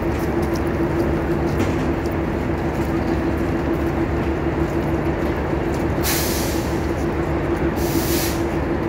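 Passenger train standing at a platform: a steady drone with a constant low hum, broken about six and eight seconds in by two short bursts of hissing air like air-brake exhaust.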